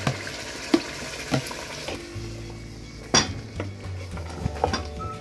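Chopped spinach being scraped into an aluminium pot and stirred into sizzling meat with a wooden spoon. A few sharp knocks of the spoon against the pot ring out, the loudest about three seconds in.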